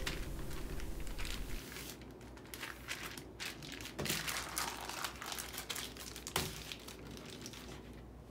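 Plastic zip-top bag crinkling faintly as hands rub and knead marinated chicken pieces through it, with a few louder crackles scattered through.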